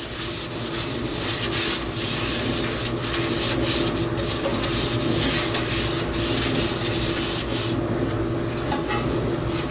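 Bunched paper towel rubbed around the inside of a loaf pan to spread olive oil over it, in quick repeated scrubbing strokes. A steady low hum runs underneath.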